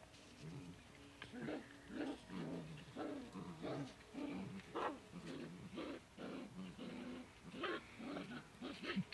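Two small dogs growling in a run of short growls as they tug against each other on a cloth toy.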